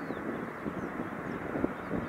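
Jet engines of an arriving airliner on approach: a steady low rumble.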